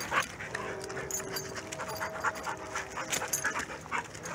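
Dogs play-wrestling: heavy panting with quick, irregular scuffles. A steady droning tone runs through the middle of it.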